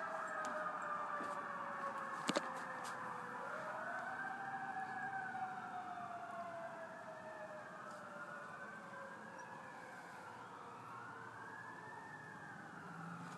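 Several fire truck sirens wailing up and down at once, overlapping and slowly fading. There is a sharp click about two seconds in.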